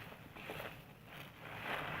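Soap being lathered: about four wet rubbing swishes, the loudest near the end.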